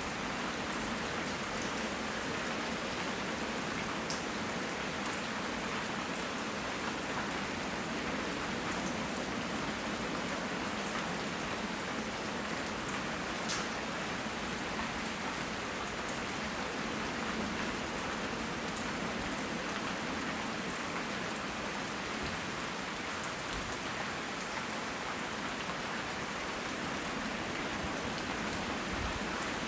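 Steady tropical rain falling on surfaces, an even hiss with scattered sharper drop ticks. Recorded on a phone microphone.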